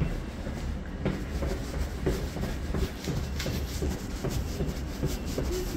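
London Underground train noise at a station platform: a steady low rumble with irregular clicks and clatter over it.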